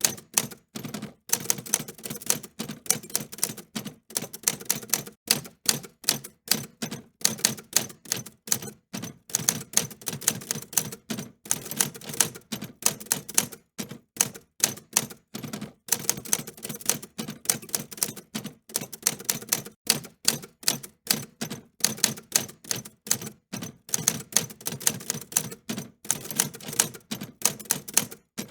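Typewriter keys being struck in a steady stream of sharp clicks, several a second, with short gaps between runs of typing.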